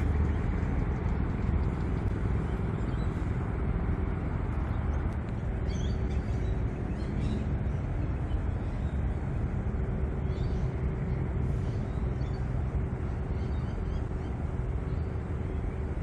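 Steady low outdoor rumble, with a few faint bird chirps about six to seven seconds in.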